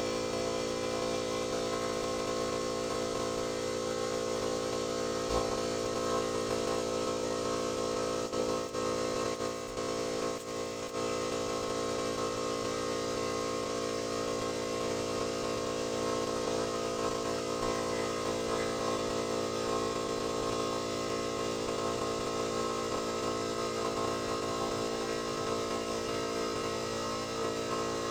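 Steady machine hum of a motor or engine running at constant speed, even throughout with a brief dip in level about nine seconds in.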